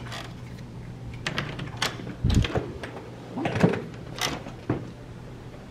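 Hotel room door with a key-card lock being unlatched and pushed open: a run of clicks and knocks from the lock and lever handle, with one heavier dull thump a little over two seconds in, over a steady low hum.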